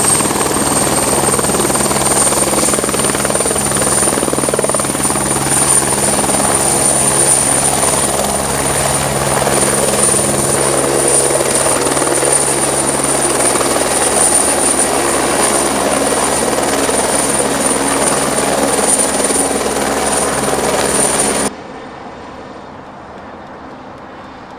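AS355 Twin Squirrel twin-turbine helicopter running: a high, steady turbine whine over the fast, deep beat of the rotor. The sound cuts off suddenly near the end, leaving a much quieter background.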